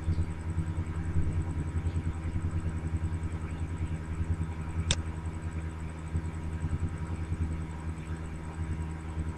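Steady low hum with a fast flutter in loudness, under a faint steady high whine; a single sharp click about five seconds in.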